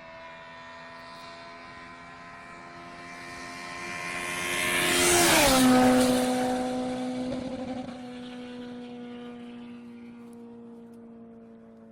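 A Honda K20-engined car passes at steady revs; its engine note swells to a peak about halfway through, drops in pitch as the car goes by, then fades away.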